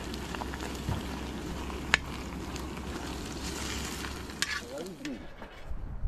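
Fish frying in hot oil: a steady sizzle with a sharp pop about two seconds in. The sizzle stops about five seconds in.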